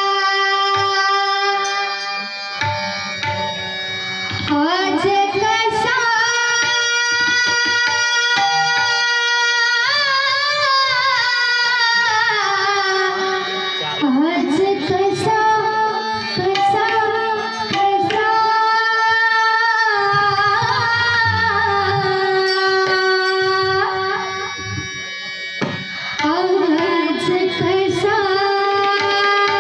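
A gaulan, a Marathi devotional song, sung live to harmonium, pakhwaj and tabla. Held harmonium notes sound at the start, and the singing voice comes in a few seconds later over the drum strokes.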